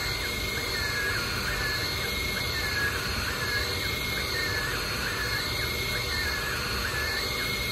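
Ortur Laser Master 3 diode laser engraver running an engraving job: its stepper motors whine, the pitch stepping up and down about twice a second as the laser head sweeps back and forth. A steady high tone and a low hum run underneath.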